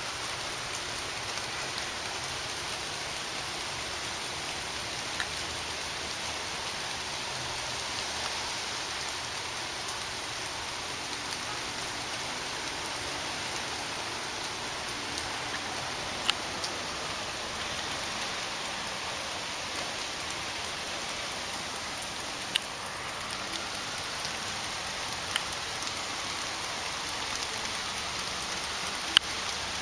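Steady hiss of light rain falling on a concrete patio, with a few sharp ticks scattered through.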